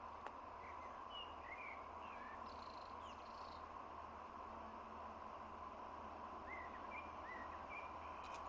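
Birds giving short chirping calls in two bouts, one in the first couple of seconds and one near the end, over a faint steady hum.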